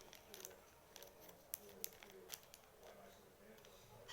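Faint scattered clicks and taps of a small plastic container being worked at by hand, its lid not yet coming open.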